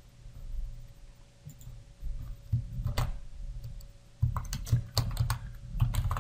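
Typing on a computer keyboard: a few scattered keystrokes, then a quick run of key clicks over the last two seconds.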